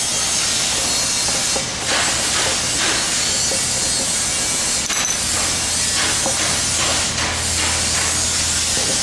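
A duct clamp being loosened and taken off a duct joint: scattered metal clicks and rattles over the steady hiss of factory machinery. A low hum comes in about five seconds in.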